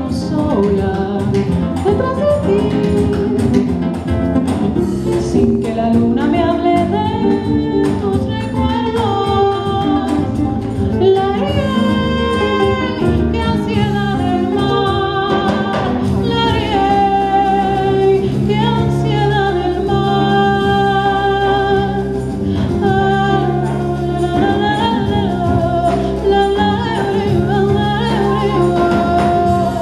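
Live performance of a jazz-inflected Latin song: a woman sings a held, wavering melody over acoustic guitar, electric bass and percussion.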